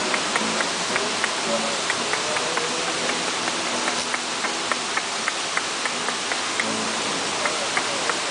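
Steady rush of falling water from a mountain waterfall. A quick run of short clicks sits on top, a few a second.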